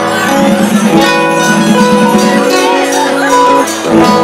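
Pagode band playing an instrumental passage: strummed acoustic guitar and cavaquinho chords over samba percussion.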